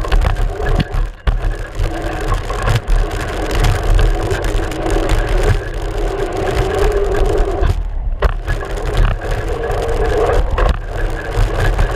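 Mountain bike riding a dirt trail, heard from a camera on the front fork: a steady rumble of the front tyre on the ground and rattling through the mount, broken by sharp knocks from bumps.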